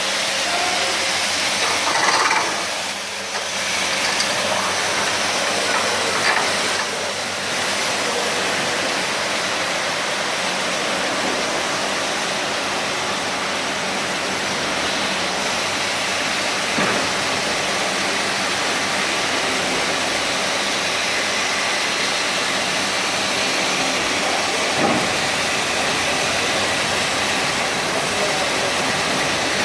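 Automatic carpet washing machine running: a steady rushing hiss of its brushes, water and vacuum, with a faint hum and a few short knocks.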